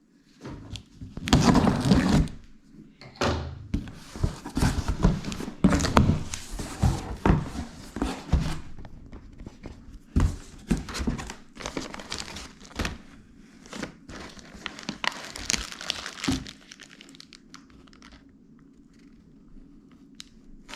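Cardboard box being opened and unpacked by hand: packing paper crinkling and rustling, with many irregular thunks and knocks as flaps and parts are handled. The handling stops about three-quarters of the way through, leaving only a faint low hum.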